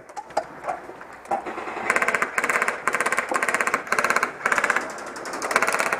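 Airsoft electric guns firing short full-auto bursts at close range. Each burst is a fast buzzing rattle of shots, and they start about two seconds in and repeat about twice a second.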